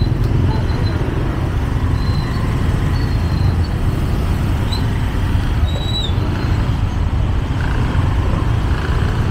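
Steady outdoor street noise dominated by road traffic: a continuous low rumble, with a few brief faint high chirps.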